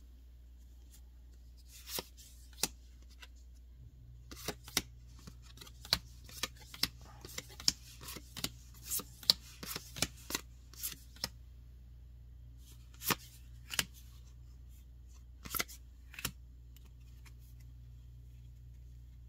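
Magic: The Gathering trading cards from a freshly opened booster pack being flipped through and set down one by one: a run of quick card snaps and slides, thickest in the middle, with a few more near the end, over a low steady hum.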